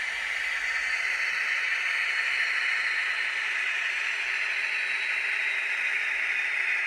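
N gauge Class 56 model locomotive's DCC sound decoder playing a diesel engine sound through its tiny onboard speaker: a steady, thin running sound with no low rumble.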